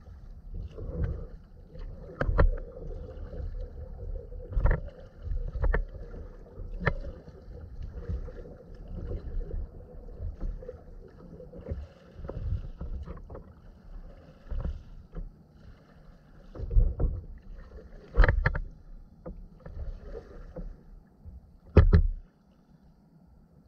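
Sea kayak being paddled: uneven splashing and dripping from the paddle strokes about once a second, with several sharp knocks, the loudest near the end.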